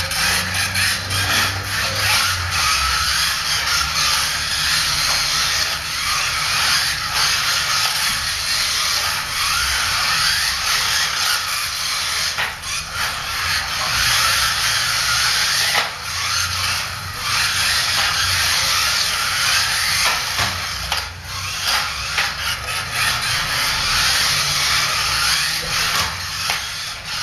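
Kyosho Mini-Z Enzo RC cars' small electric motors and gears whirring steadily as the cars race laps around the track.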